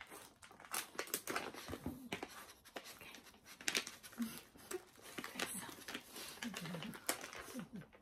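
Scattered crinkling and clicking rustles of a plastic dog-treat packet being handled.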